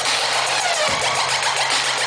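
Electronic dance music played loud over a concert sound system: a harsh, grinding synth with falling sweeps over a steady low note, and a bass hit about a second in.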